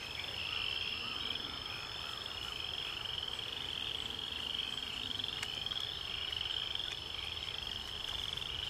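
A chorus of frogs calling, short rising trills repeating about once a second.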